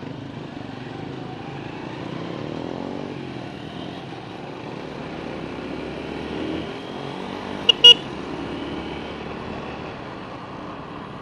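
Motorcycle engine running as the bike rides off, its pitch rising over the first few seconds, with road noise. A horn beeps twice in quick succession about eight seconds in; the beeps are the loudest sound.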